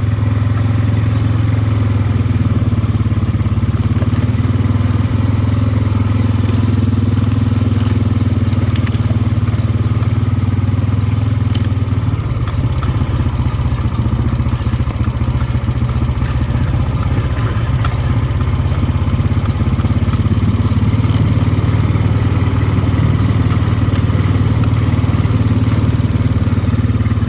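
ATV engine running steadily as it rides along a farm trail; about halfway through its note turns rough and uneven for several seconds, then steadies again.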